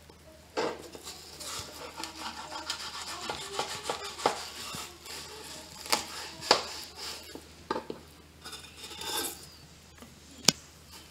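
A blunt knife sawing and scraping through a flathead's flesh along the backbone, with sharp knocks now and then as the blade strikes a plastic cutting board, three of them loudest about six, six and a half and ten and a half seconds in.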